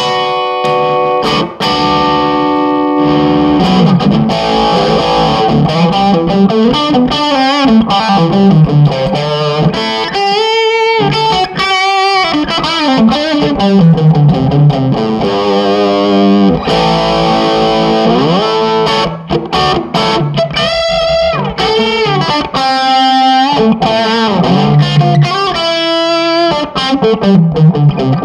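Electric guitar played through a Marshall Lead 12 solid-state mini stack with overdrive: a lead line of held notes with bends and vibrato, mixed with quick runs of notes.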